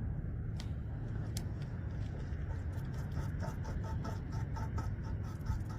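A beaver gnawing bark off a stick: a rapid run of crisp clicks at about five a second in the second half, over a steady low rumble.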